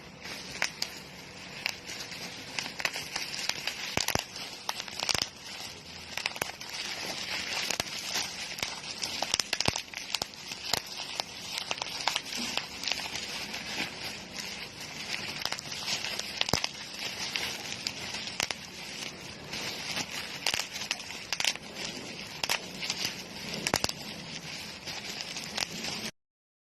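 Plastic packaging crinkling and crackling as it is handled, with many sharp clicks scattered through it; it stops abruptly near the end.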